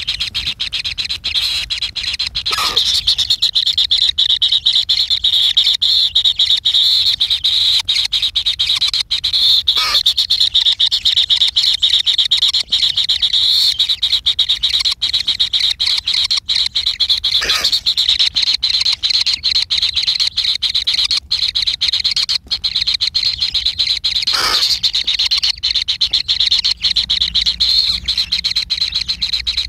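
Animal calls: a steady, high, rapid trilling chorus, crossed four times by a brief call that sweeps downward in pitch, about seven seconds apart.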